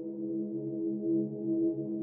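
Slow ambient background music: held low tones that gently swell and fade.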